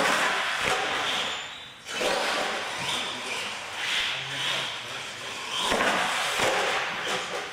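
Radio-controlled monster truck driving and jumping ramps on a concrete floor: a continuous whir of its drivetrain and tyres, with a few sharp knocks as it hits and lands off the ramps.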